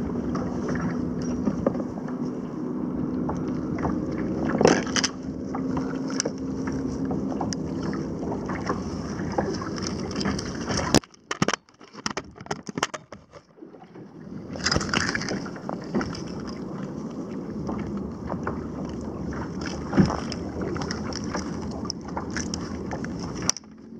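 Wind buffeting the microphone on a fishing kayak, with scattered knocks and rustles of handling gear and fish. About eleven seconds in the sound goes briefly muffled and much quieter, then the wind noise returns.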